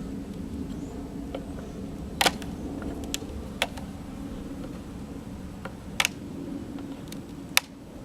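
Honeybees buzzing in a steady hum, broken by about five sharp knocks, the loudest about two seconds in and near the end.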